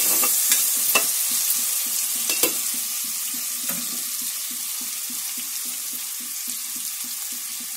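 Chopped onions and green chillies frying in hot oil with a steady sizzle that slowly grows quieter. A few sharp clicks come in the first two and a half seconds.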